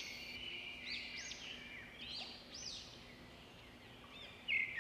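Faint birdsong: a series of short, arching chirps repeated several times, growing louder near the end, over a faint steady low hum.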